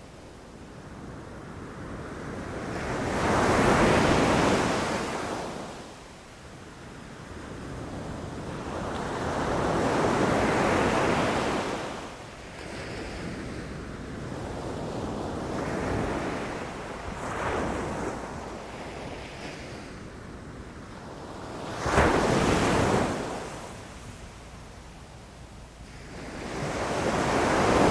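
Ocean surf: waves breaking on the shore and washing back, swelling and fading every five or six seconds, with one sharper, sudden crash about two-thirds of the way through.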